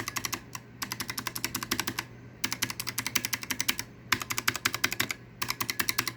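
Fast typing on a keyboard with Razer Purple optical clicky switches: rapid, loud clicks in bursts of a second or so, with short pauses between them.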